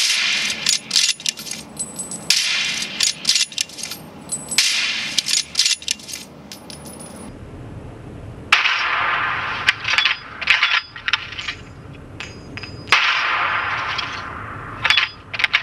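Small hard plastic objects, earbuds and their charging cases, clicking and clattering in repeated short bursts, with a few light metallic ringing notes.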